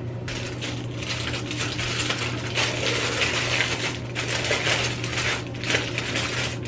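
Clear plastic bag crinkling and rustling as it is handled, with the small tools inside shifting against each other.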